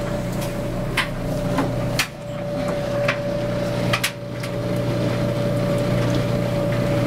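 Steady machine hum with a constant high whine, overlaid by about five sharp knocks or clicks in the first four seconds.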